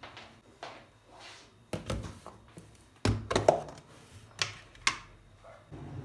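Knocks and clunks of kitchenware being handled and set down on a granite countertop, among them a plastic food container, about six strikes with the loudest cluster about three seconds in.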